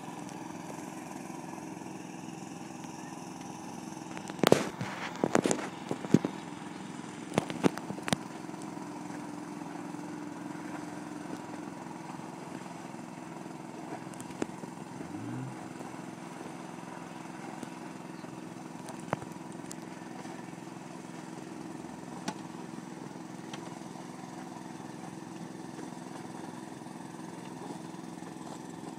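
Boat engine running steadily with an even low hum. About four to eight seconds in, a cluster of loud, sharp knocks breaks over it.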